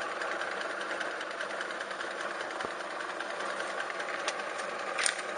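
Feya-2 washing machine's electric motor running with the tub dry and empty: a steady mechanical hum with a fine rapid rattle. A short click comes about four seconds in and a sharper one near the end.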